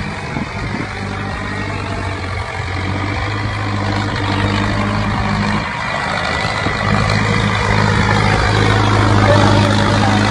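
Mahindra Arjun Novo tractor's diesel engine running steadily under load as it pulls a harrow through the soil. It grows louder as it comes close.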